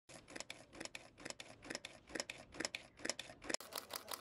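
Nikon D750 DSLR's shutter and mirror firing in a rapid continuous burst, sharp clicks several times a second. About three and a half seconds in, it switches abruptly to an even faster, steady run of about six clicks a second.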